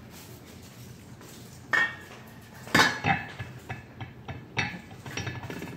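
Metal cookware and utensils clattering: a series of sharp clanks and clinks with a brief ring, the loudest about three seconds in, with lighter clinks after.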